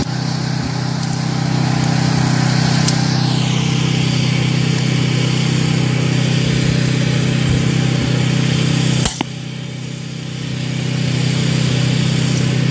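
An engine running steadily with a constant low hum, and a single sharp click about nine seconds in.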